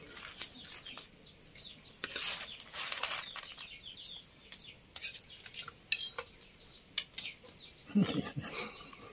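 Spoon and cutlery clinking lightly against plates and bowls while eating: a scattered series of sharp little clicks over a steady high hiss.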